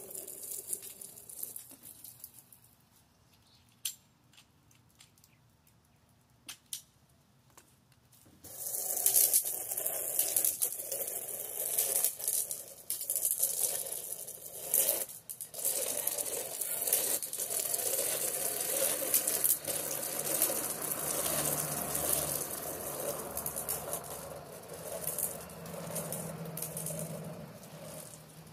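Water hissing from a pressure-washer wand's low-pressure nozzle onto vinyl siding, starting about eight seconds in after a few faint clicks and then running steadily. The washer's engine is off: the flow comes from house spigot pressure alone, drawing soap through a downstream injector.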